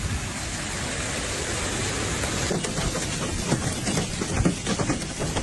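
Heavy rain and hail: a dense hiss of rain and water. From about halfway in, many sharp taps of hailstones striking the ground are added.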